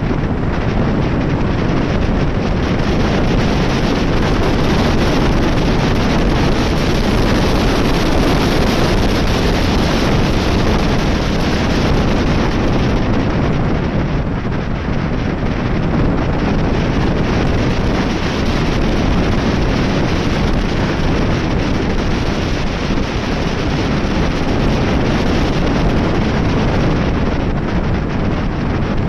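Loud, steady wind noise rushing over the microphone of a camera on a moving motorcycle, drowning out the engine.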